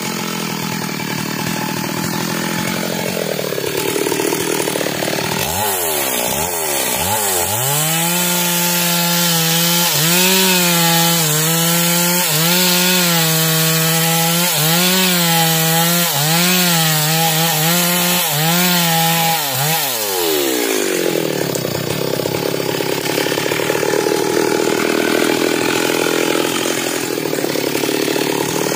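Stihl chainsaw cutting through a felled log. It revs up about five seconds in, holds a steady high speed through the cut, and drops back about twenty seconds in, then revs up again at the very end.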